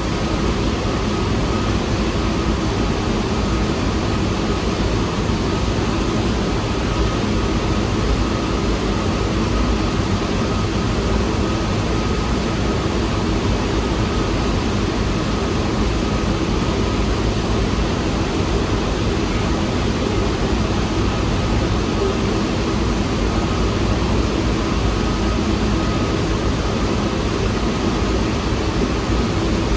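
Steady noise of a New York City subway train, a low rumble and hiss with a faint hum, unchanging and without breaks.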